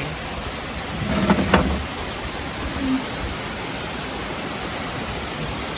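Heavy rain falling, a steady even hiss of drops on surfaces. A brief knock sounds about a second and a half in.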